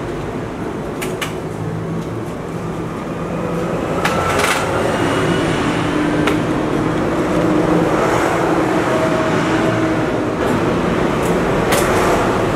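Steady road-traffic noise, vehicle engines running, with a few sharp clicks.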